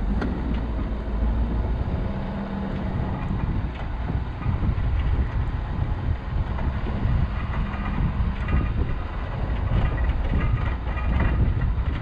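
Plow truck driving, with a steady engine hum over a heavy low rumble and scattered faint rattles.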